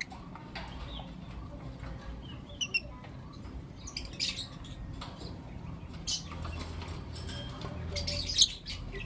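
Lovebirds chirping in short, high, scattered bursts, with the loudest call near the end.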